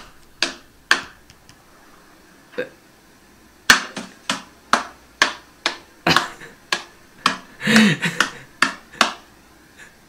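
A Bengal cat standing up and batting at a man's hand: about fifteen sharp slaps, spaced out at first and coming faster from about three and a half seconds in, with a short voiced sound near the end.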